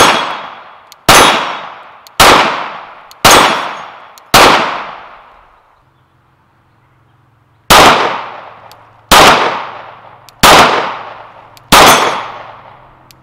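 Glock 19 Gen 5 9mm pistol fired in slow, evenly spaced shots: five about a second apart, a pause of about three seconds, then four more. Each shot rings out and dies away over about a second.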